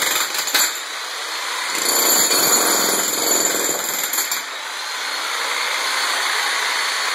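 Electric demolition hammer chiselling into a concrete floor, its steady rapid hammering running throughout and loudest from about two to four seconds in.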